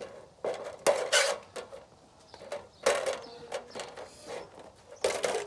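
A knife blade cutting and tearing through the thin tin-plate top of a large square cooking-oil tin: harsh metal scraping and crunching in three spells, with the tin ringing faintly between them.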